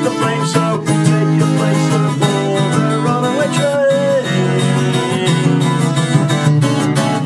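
Acoustic guitar strummed in a steady rhythm: an instrumental passage of a song with no singing.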